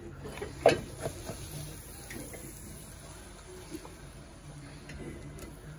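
Slotted metal spoon stirring cooked biryani rice in an aluminium pot, knocking and scraping against the pot: one sharp clank a little under a second in, then a few lighter knocks and soft scraping.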